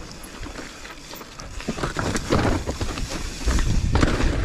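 Mountain bike rolling over a rocky dirt trail: tyres crunching on dirt and stones, with rattles and knocks from the bike that grow louder and more frequent about a second and a half in.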